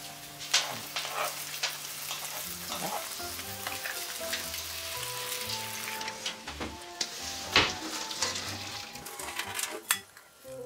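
Instant ramen noodles boiling in water in shallow pans, a steady bubbling hiss, with chopsticks clicking and scraping against the pans as the noodles are stirred.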